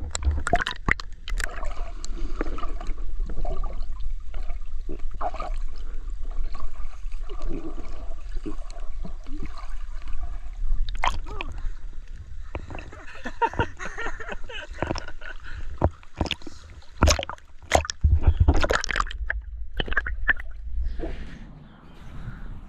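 Seawater sloshing and gurgling against a microphone held at the water's surface, with irregular splashes, a few louder ones near the end.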